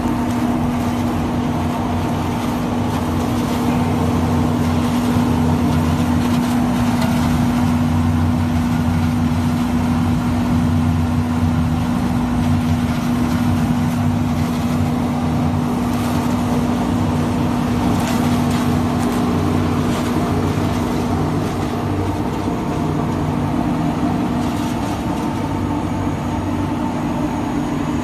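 HFM-2000 ball fiber machine running: a steady, loud mechanical hum with one strong constant drone over a low rumble, and a few faint ticks in the second half.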